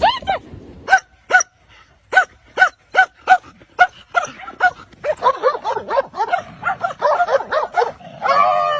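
A dog barking repeatedly in short, sharp, high barks, about two a second at first, then faster and crowding together over the last few seconds.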